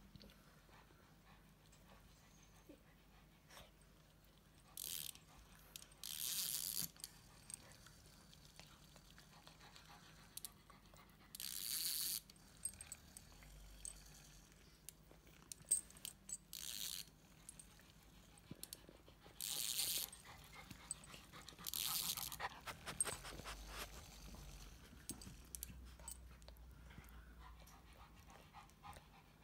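A dog breathing out in short, breathy huffs a few seconds apart as it plays with a plush toy hamster, the last one a quick run of panting.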